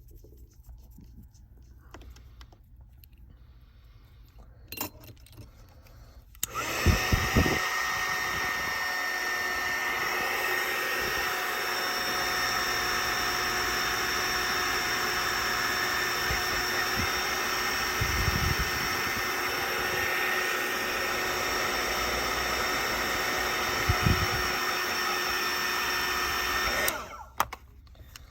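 Handheld heat gun switched on about six and a half seconds in, blowing steadily with a fan whine, then switched off near the end. A few dull knocks of handling under it.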